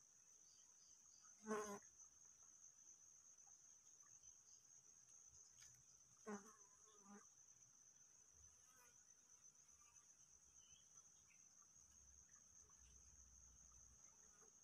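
Insects, likely crickets, trilling steadily with a faint, high, unbroken buzz. A brief pitched call or voice cuts in twice, about a second and a half in and again about six seconds in.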